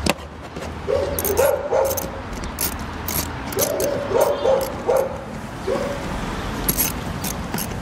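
Irregular clicks and clinks of a hand tool as bolts are tightened one after another in a crisscross order. Several short, high whining cries come in about a second in and again near the middle.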